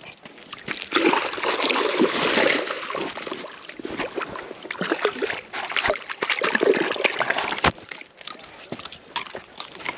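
A hooked flounder splashing in shallow water as it is dragged up onto the bank. The loudest stretch of splashing comes about a second in and lasts a couple of seconds, followed by scattered knocks and rustling as it is handled.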